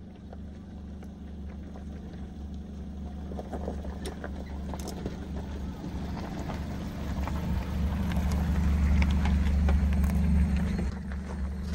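Maruti Suzuki Gypsy 4x4's engine running as it crawls over a rocky dirt track, growing louder as it approaches and passes close by. Scattered clicks of stones crunch under the tyres.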